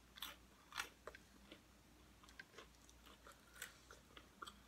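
Faint crunching of nachos being bitten and chewed: scattered soft crisp crunches, the clearest two in the first second and another about three and a half seconds in.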